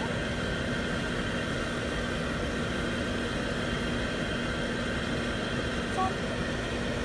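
Steady motor noise: an even whooshing hiss with a constant low hum, unchanged throughout, and a brief faint high squeak about six seconds in.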